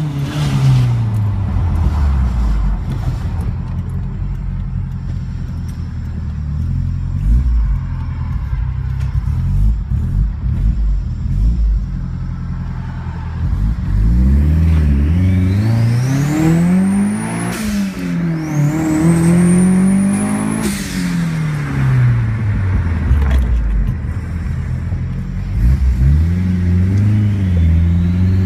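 Turbocharged Hyundai Genesis Coupe 2.0T four-cylinder accelerating through the gears, heard from inside the cabin. The engine note climbs on each pull while the turbo spools with a rising whistle. The Synapse R35 Trident radial blow-off valve vents with a sudden whoosh each time the throttle closes, a few times in the middle and later part.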